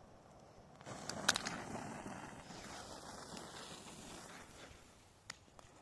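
Faint hiss of a lit firework fuse burning, starting about a second in and slowly fading over several seconds, with a few sharp clicks.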